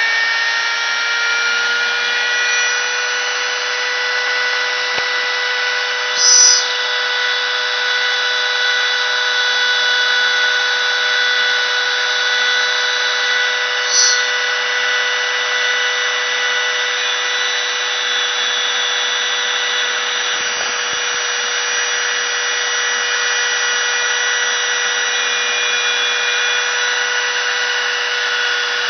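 CNC router running a sign-cutting job: a steady motor and spindle whine, with two brief higher-pitched squeals about six and fourteen seconds in.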